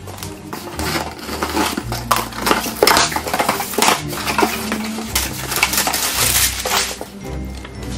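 Cardboard shipping box being unpacked by hand: scissors slitting the packing tape, the flaps pulled open, and crumpled brown kraft packing paper crackling and rustling as it is handled.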